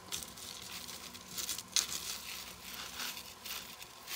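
Fine metal chains and metal spikes of a necklace clinking and rustling as they are handled and untangled by hand, with a few sharper clicks in the middle.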